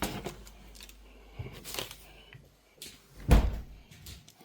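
A door or cupboard being handled: a few faint knocks, then one loud thud about three seconds in.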